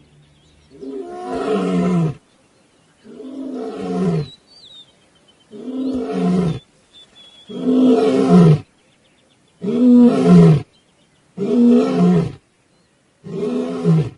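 A male African lion roaring: a series of seven loud calls, each about a second long and dropping in pitch, coming roughly every two seconds.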